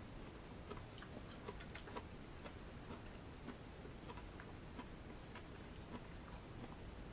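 Faint chewing of a mouthful of squash and mushrooms, with small irregular clicks every fraction of a second.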